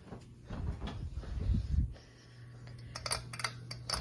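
Hunter Stonington ceiling fan motor humming steadily while it turns very slowly on medium speed, which the owner thinks may be a bad capacitor. Low rumbling knocks fill the first two seconds, and from about three seconds in comes a quick run of sharp clicks.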